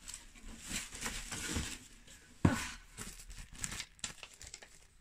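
Clear plastic packaging crinkling and rustling as small merchandise is handled, with one sharp knock about halfway through.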